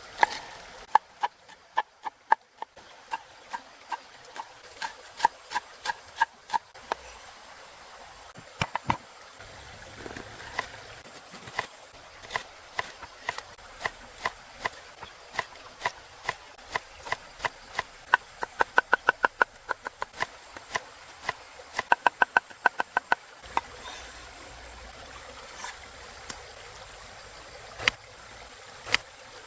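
Knife chopping on a wooden cutting board in runs of steady strokes, with two quick flurries of fast chops past the middle.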